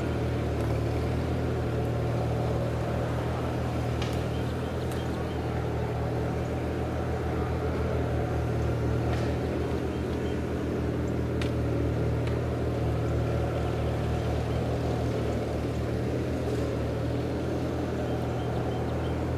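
Steady low drone of an engine running without change, with a few faint ticks over it.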